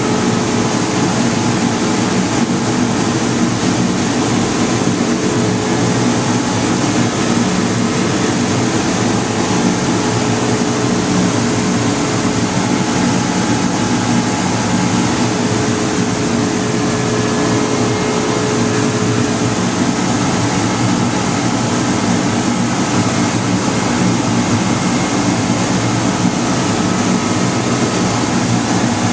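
Steady, loud running of a machine: a constant rush of air with a hum of several steady tones under it. It is the blower of a vacuum hold-down table, drawing air through the perforated bed to hold plastic film flat.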